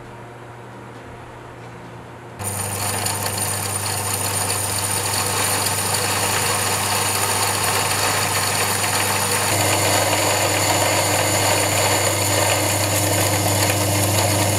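Electric stainless-steel grinding mill milling mung beans into flour: a low motor hum, then about two seconds in the sound jumps suddenly to a loud, steady grinding whir with a strong hum, growing a little heavier past the middle.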